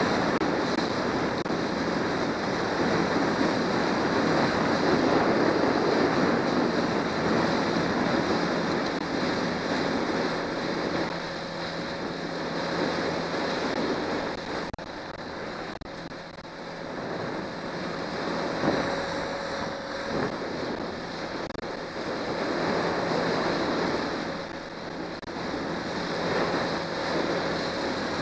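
A motorboat underway on choppy river water. Wind buffets the microphone and water rushes and slaps against the hull, swelling and easing, over a faint steady hum from the Johnson 90 hp outboard.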